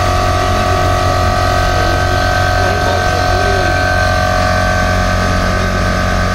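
A 30-litre, 2.5 HP oil-lubricated electric air compressor running steadily, its motor and pump making a constant drone and hum as it pumps up the tank, with a fair amount of noise typical of the oil type.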